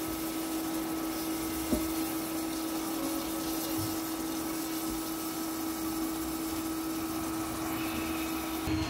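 Steady machine hum holding one constant pitch over an even hiss, with a single light click about two seconds in.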